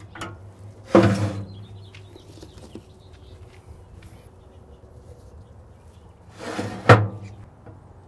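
Steel vertical smoker cabinet clanking twice, once about a second in and once near the end, each knock ringing briefly: metal grate and door hardware knocked while the meat is loaded onto the rack.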